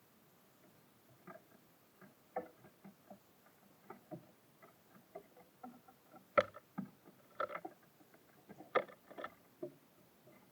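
Irregular light taps and knocks of small birds pecking and landing at a bird feeder, with the loudest knocks a little past the middle.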